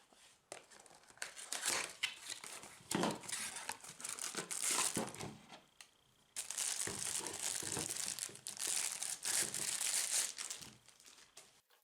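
Plastic packaging crinkling and rustling as it is unwrapped from a puzzle, in irregular handling bursts that turn louder and continuous for a few seconds past the middle.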